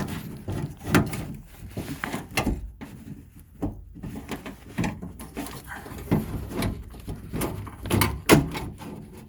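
A door lock actuator assembly being worked out of a minivan's front door shell: irregular clunks, clicks and scrapes of plastic and metal against the door's inner panel, with the sharpest knock near the end.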